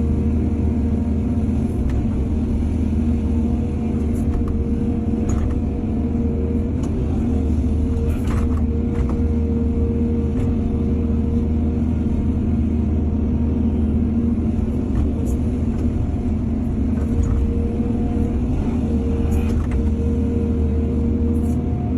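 Excavator's diesel engine running steadily, with a low rumble and a constant hum and a few faint knocks of working machinery.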